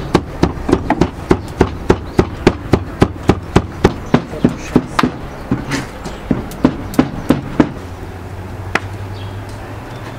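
Large kitchen knife rapidly chopping and mincing onion and peppers on a wooden cutting board, a steady run of sharp knocks about four a second that stops about eight seconds in.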